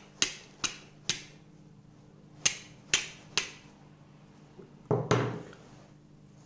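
Steel striker scraped hard down a flint to throw sparks onto charcloth: three quick sharp strikes, a short pause, then three more. A heavier knock follows about five seconds in.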